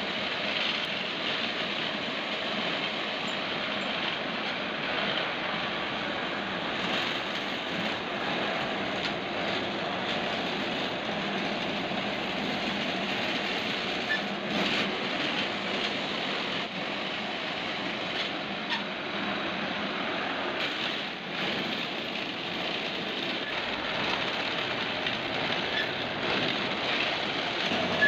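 Homemade wood rod rounding machine running steadily. Its electric motor drives the spinning cutter head by a belt while wooden sticks are fed through and shaved round, with a few faint clicks.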